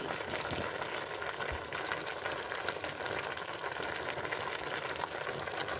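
Cast-iron potjie pot of vegetables sizzling and bubbling over an open wood fire, a steady crackle of many small ticks.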